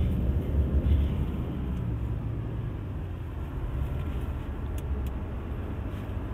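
Steady low rumble inside the cabin of a 2020 Toyota Hilux pickup under way: its 2.8-litre 1GD-FTV turbo-diesel four-cylinder and tyre noise from the road.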